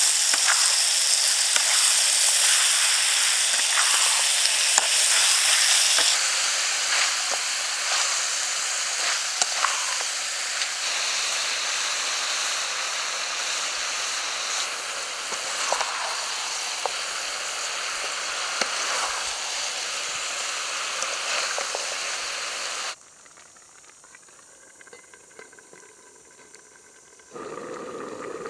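Chicken wings sizzling loudly in a hot oiled steel wok, with the sharp scrapes and clicks of a metal spatula stirring them against the pan. About 23 seconds in the sizzling cuts off suddenly to something much quieter, and a louder, lower sound starts shortly before the end.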